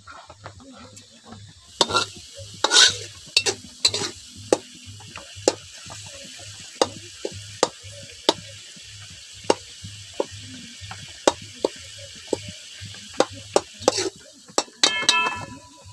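A metal spatula stirs and scrapes a tomato masala frying in an aluminium kadhai. It knocks sharply against the pan again and again over a steady sizzle. A short ringing tone comes near the end.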